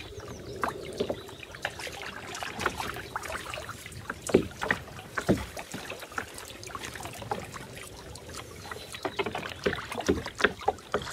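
A single-seat kayak being paddled: irregular small splashes and drips of water from the paddle strokes, with water lapping at the hull.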